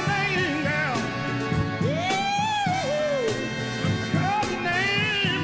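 A soul singer holding long notes that bend up and down, over a band accompaniment.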